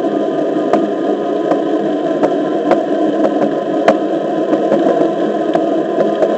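Onewheel XR rolling along a concrete sidewalk, heard from a camera mounted on the board: a steady rolling rumble with a faint steady whine from the hub motor, and short sharp clicks every second or so as the tyre crosses the sidewalk joints.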